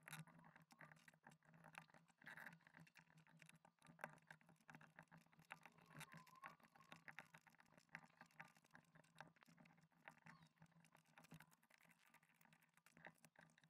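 Faint, irregular plastic clicks and taps of ABS keycaps being handled and pressed onto mechanical keyboard switches.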